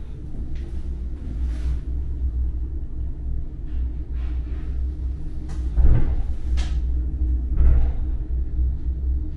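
Schlossberg-Bahn funicular car running along its track, heard from inside the cabin: a steady low rumble, with two louder knocks about six and eight seconds in and a few faint clicks.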